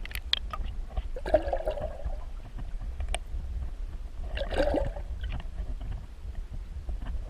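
Water splashing and sloshing at the side of a kayak as a hooked chain pickerel is landed, louder twice, about a second and a half in and again near five seconds in. Short clicks and knocks from the kayak and fishing gear, over a steady low rumble.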